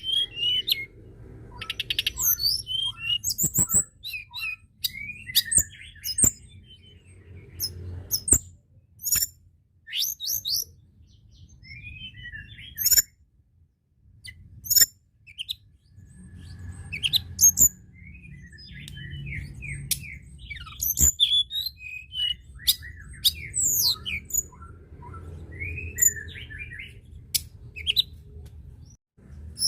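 Tledekan gunung singing: quick phrases of sharp, high chirps and whistled notes, broken by short pauses, over a faint low rumble.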